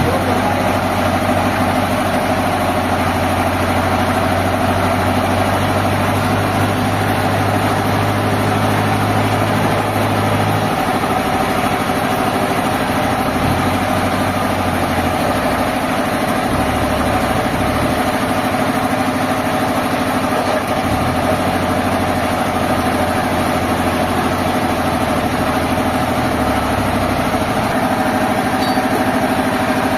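Sawmill machinery running steadily, a loud engine-like drone whose lowest hum shifts in pitch in steps several times.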